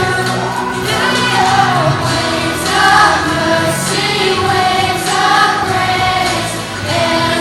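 Music: a group of voices singing together over instrumental accompaniment.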